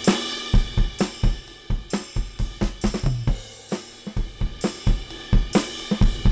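A drum kit groove (kick, snare, hi-hat and cymbals) running through the KD1 Kinetic Drive's analogue saturation circuit in wideband all-wheel-drive mode, with the drive, the gain into the saturation, being pulled back. The level sinks through the middle and comes up again near the end.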